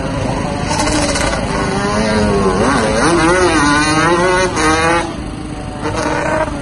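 Yamaha Banshee quad's two-stroke twin engine, bored out to 472cc, revving up and down as it is ridden through tight turns. The pitch rises and falls repeatedly, is loudest in the middle, and drops away about five seconds in.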